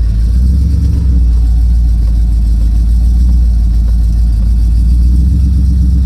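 1984 Chevrolet K5 Blazer's 454 big-block V8 running, a loud, steady low rumble.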